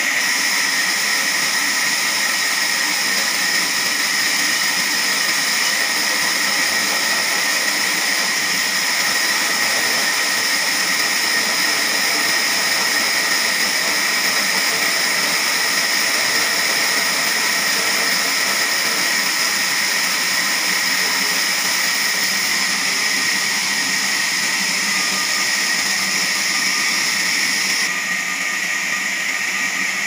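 Large horizontal band sawmill cutting lengthwise through a squared log: a steady, loud, high whine of the blade in the wood. About two seconds before the end the highest part of the sound falls away.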